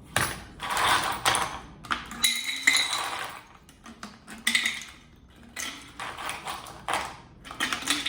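Ice cubes clattering and clinking into a glass in a series of bursts, with a short glassy ring about three seconds in.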